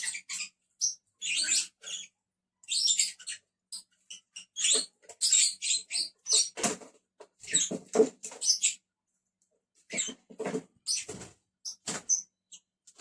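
Lovebirds chirping and chattering in short, high-pitched, irregular bursts, with brief pauses between clusters of calls.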